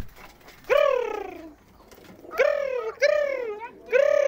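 Domestic pigeons cooing: four separate coos, each rising then falling in pitch, with one loud call near the end.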